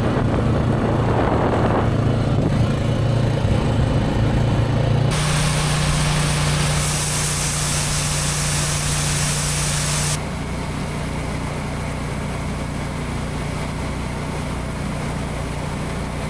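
Steady engine and machinery noise from grain hauling: a semi with a grain trailer and a grain auger running. The sound changes abruptly about five and ten seconds in, with an added hiss in between.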